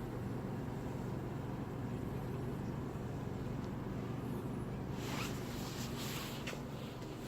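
Steady electric hum of a refrigerated display case's compressor and fans running during a test. A brief scraping rustle comes about five to six seconds in.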